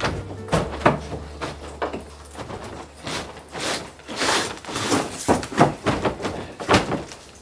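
A stuck old wooden-framed glass sliding door being forced along its track: irregular knocks and rattles, with a longer scrape about four seconds in as it starts to move.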